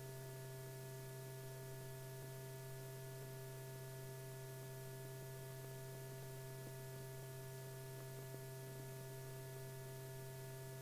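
Steady low hum with a few fainter, higher steady tones over light hiss. It holds unchanged throughout, with no handling sounds.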